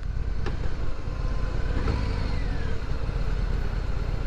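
2021 Harley-Davidson Sport Glide's 107 cubic inch Milwaukee-Eight V-twin running steadily at low revs while the bike cruises in second gear at town speed. There is a short click about half a second in.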